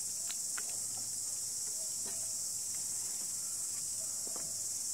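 A steady high-pitched insect chorus. Under it there are only a few faint ticks and a low hum from a Leach-style treadle potter's wheel being treadled; it was built without a chain drive so that it runs almost silently.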